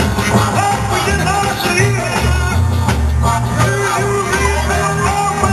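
Loud recorded pop-rock music with a steady bass line and a singing voice.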